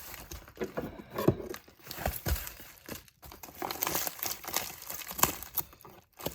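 Packaging being handled, crinkled and torn open, with irregular crackling and sharp rustles.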